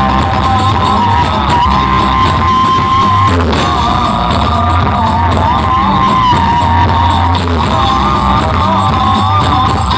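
Music played loud through a large horeg sound system of twelve subwoofers, with heavy, steady bass and a wavering lead melody above it.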